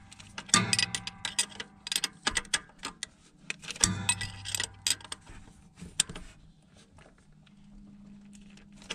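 Steel wrench clicking and clinking on a nut of a starter motor as it is worked tight: a run of irregular sharp metallic ticks that grow sparser and quieter after about six seconds.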